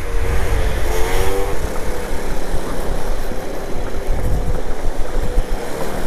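Peugeot Jetforce scooter riding over cobblestones: a dense jolting rumble from the wheels and suspension, with the engine note rising briefly about a second in.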